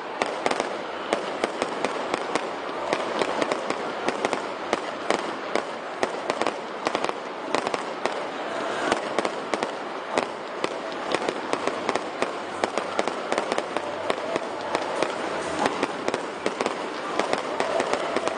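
Fireworks display: a dense, continuous barrage of aerial shell bursts, several bangs a second over steady crackling.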